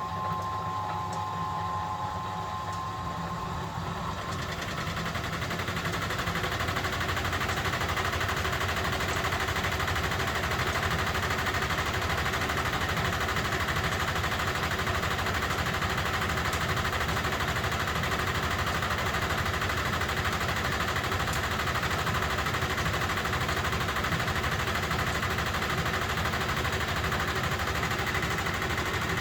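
Motor and drum of a 1971 Constructa Garant 491 washing machine starting up and running, getting louder over the first six seconds, then holding a steady, loud mechanical hum.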